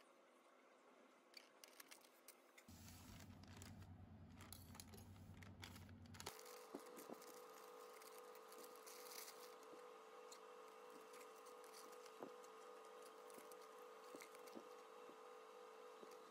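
Near silence with faint packaging handling: soft crinkles and clicks of plastic bags, and scissors cutting open a plastic mailer. A faint steady hum comes in about six seconds in.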